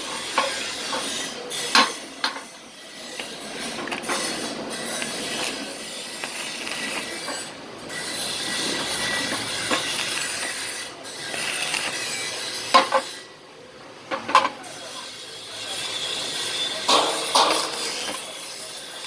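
Metalworking on steel: a steady crackling hiss that swells and fades in long stretches, broken by several sharp metal knocks and clinks.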